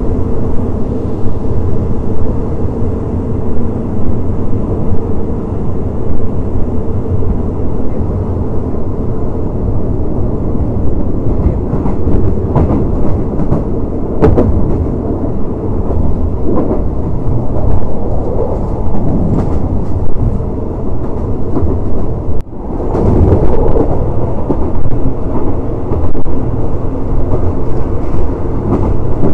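Passenger carriage of a train running at speed, heard at an open window: a steady rumble of wheels on rail, with a few sharp clicks around the middle and a brief drop in sound about 22 seconds in.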